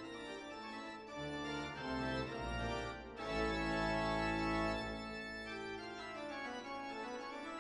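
Quiet background music of slow, held chords on a sustained keyboard sound, the chord changing every second or two.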